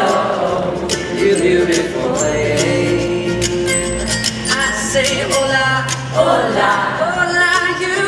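Live acoustic band playing the song: steel-string acoustic guitar and upright bass with several voices singing.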